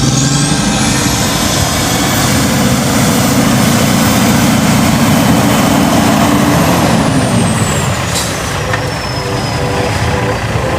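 A vehicle stuck in deep snow, its engine revved hard while the wheels spin. A high whine rises over the first two seconds, holds for about five seconds, then falls away as the engine eases off.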